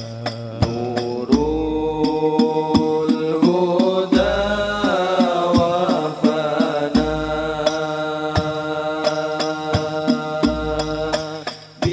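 Men singing sholawat together in long, held, ornamented notes, accompanied by banjari frame drums (terbang) beating a steady rhythm with deep bass strokes every few seconds. The music drops back briefly near the end before a drum stroke brings it in again.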